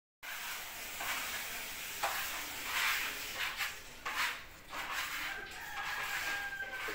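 Painter's trowel scraping texture paint across a plastered wall in a series of short strokes.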